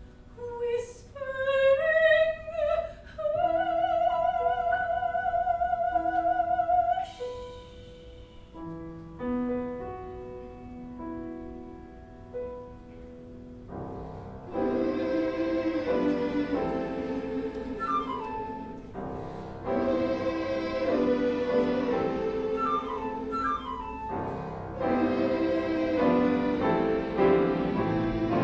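Operatic soprano sings a solo phrase with wide vibrato, ending on a long held note; a quieter instrumental passage follows, and about halfway through a children's choir comes in singing with piano accompaniment.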